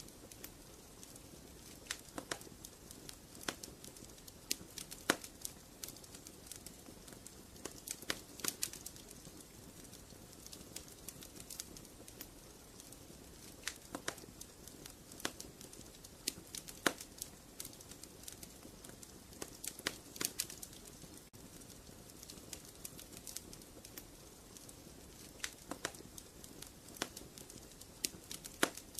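Wood fire crackling in a fireplace: a soft steady hiss with frequent sharp, irregular pops and snaps.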